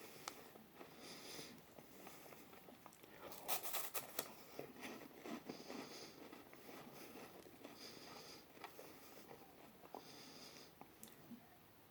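Faint chewing of an Umaibo puffed corn snack, with soft crunches now and then.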